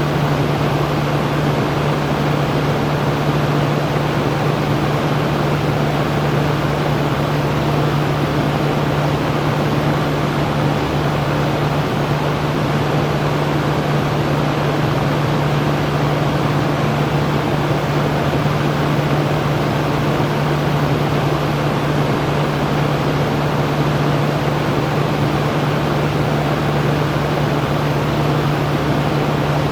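Electric fan running steadily: an even rushing noise of moving air with a constant low hum from the motor.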